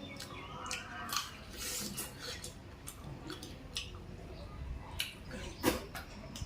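A person chewing and smacking while eating meat, with irregular wet clicks and smacks; one sharper click about five and a half seconds in.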